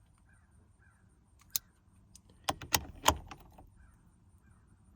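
A few sharp metallic clicks and knocks of hand work on a truck's steering column. There is a single click about a second and a half in, then three louder knocks close together about two and a half to three seconds in.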